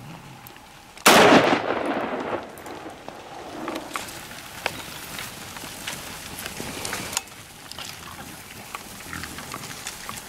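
A herd of feral hogs bolting across dry ground: a sudden loud rush about a second in that fades over a second or two, followed by scattered footfalls and knocks.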